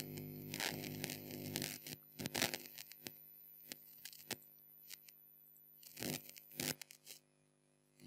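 Computer mouse: several sharp clicks and a few short scratchy bursts of the scroll wheel turning as the 3D view is zoomed. A low steady electrical hum runs under the first two seconds and then stops.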